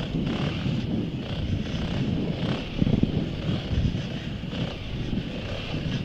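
GasGas ES700's single-cylinder engine running as the bike rides a rough dirt trail, its level rising and falling, with wind buffeting the bike-mounted microphone.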